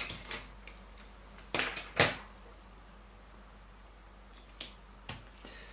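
Scattered clicks and knocks from hands unplugging one e-meter calibration resistor and connecting the next. The loudest is a sharp knock about two seconds in, with softer clicks near the start and near the end.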